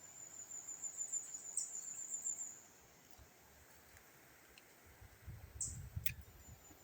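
An insect giving a high, rapidly pulsing trill that stops about two and a half seconds in and starts again at the end. A short low rumble comes about five seconds in, with a sharp click about six seconds in.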